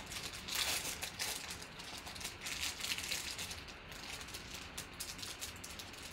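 Foil trading-card pack wrapper crinkling and tearing in irregular crackles as it is peeled open by hand.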